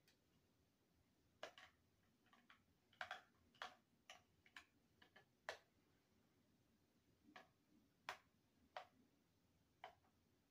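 About a dozen faint, sharp, irregularly spaced clicks of a handheld static-discharge spark tool being fired at a StackMat G5 Pro timer and its cord, a test of whether a static shock resets the timer; it does not.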